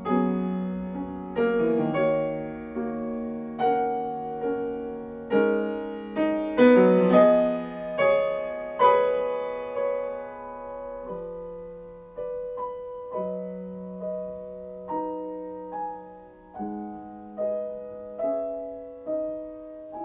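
Solo piano playing slow chords and single notes, each struck note ringing and fading away. Louder through the middle, softer and sparser near the end.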